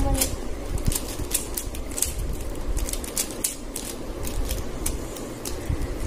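A plastic 3x3 Rubik's cube being scrambled: its layers are twisted by hand in quick turns that make a string of irregular clicks and clacks.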